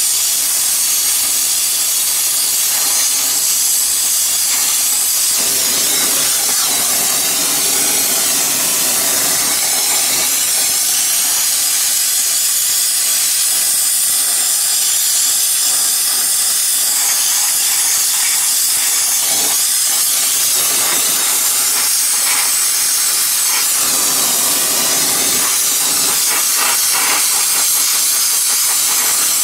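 Gas brazing torch flame hissing steadily as it heats a crack in a cast iron plane body and melts flux-coated brass brazing rod into it.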